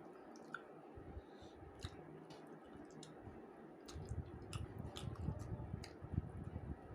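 Faint close-up eating sounds: wet chewing and squishing with scattered small clicks, growing busier with soft low knocks from about four seconds in.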